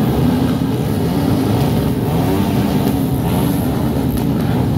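A pack of motocross motorcycle engines running together at the starting line, a steady blended drone with riders blipping the throttles so the pitch rises and falls.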